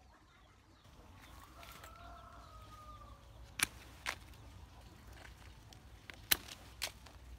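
Pruning shears snipping pomelo twigs: four sharp clicks in two pairs, each pair about half a second apart. A faint drawn-out call is heard in the background before the first snips.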